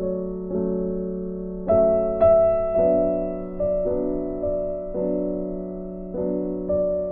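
Background music: slow keyboard chords, each struck and left to ring.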